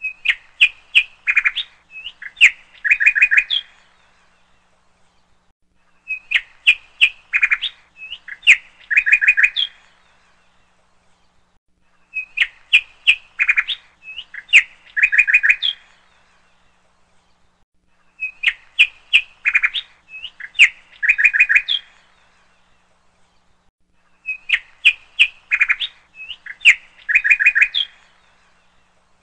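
Songbird chirping from a looped background recording: a phrase of quick chirps and a couple of short trills, about four seconds long, repeats the same way every six seconds or so, with pauses between.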